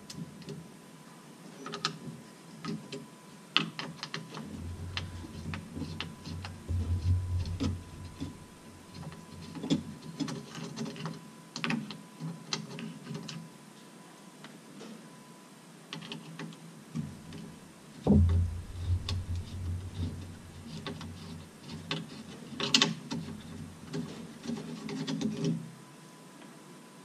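Irregular small clicks and rattles of hands working the Mercedes SLK230 Vario roof's flip-shelf flap mechanism, plastic and metal parts being handled while its tensioner rope is replaced. Two stretches of low rumbling knocks come about five seconds in and again about eighteen seconds in.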